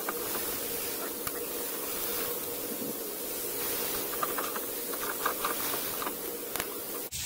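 Steady background hiss with a low hum, and a few faint ticks from a hand screwdriver driving a screw through the plastic wheel-well liner to fasten a mud flap, most of them in the second half.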